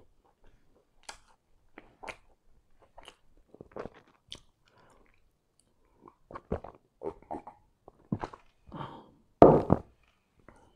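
Close-miked mouth sounds of a man chewing pizza, with soft smacks and clicks. He then takes several gulps of cola from a glass mug, and there is a louder burst about nine and a half seconds in.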